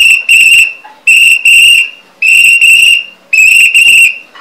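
A whistle blown hard in four pairs of short, shrill blasts, each pair about a second apart.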